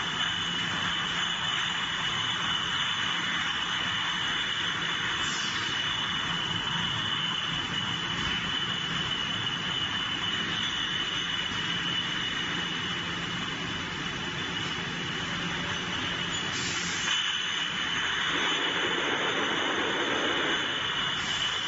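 Steady running noise of a bottle de-palletizer and its conveyor line, with a constant high whine and a low hum underneath. Near the end a lower drone rises for a few seconds.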